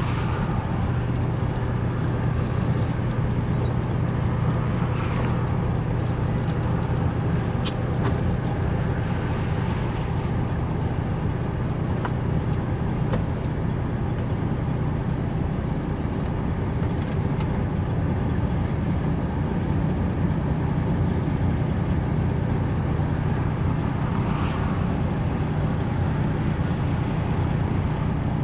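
Semi truck's diesel engine and road noise heard from inside the cab with the window cracked open: a steady low hum that holds even throughout.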